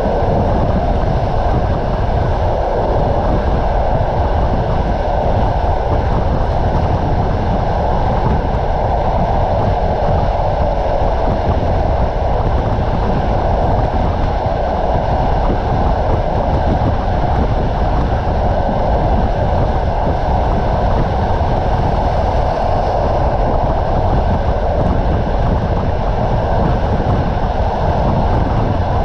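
Passenger train coach running along the track at speed, a steady rolling rumble of its wheels on the rails heard from inside the coach.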